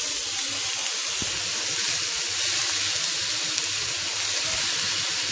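Hot oil sizzling steadily in a pan as chopped onion and tomato are dropped in to fry with garlic and chili flakes.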